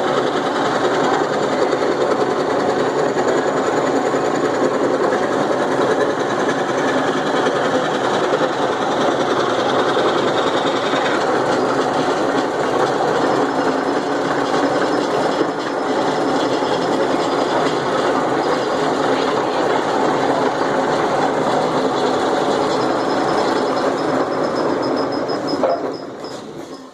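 Electric jigsaw running and cutting continuously, a steady loud rattling buzz of the reciprocating blade, which stops near the end.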